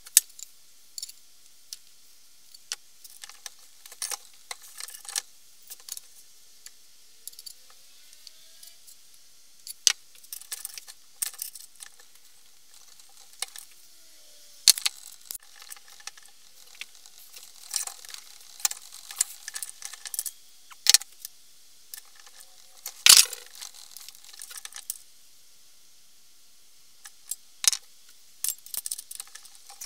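Scattered clicks and clinks of a rusty steel axe head and tools being handled against a cast-iron bench vise, some with a short metallic ring, and one louder knock about two thirds of the way through.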